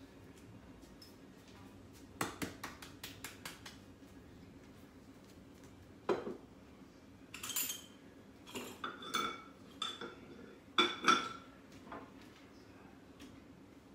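Kitchen dishes and metal utensils clinking and clattering as they are handled: a quick run of small clicks about two seconds in, a single knock, then several ringing clinks in the second half.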